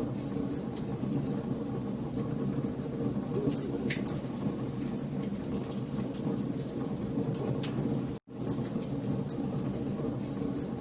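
Wood fire burning in a fireplace: a steady low rumble of flames with frequent sharp crackles and pops. The sound cuts out for an instant about eight seconds in.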